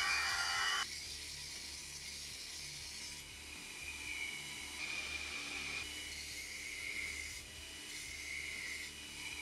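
Belt grinder running, its abrasive belt hissing against a steel file held to it to grind the tang, with a steady whine and low motor hum; the hiss swells and fades as the steel is pressed on and lifted. About a second in, a louder sound stops suddenly.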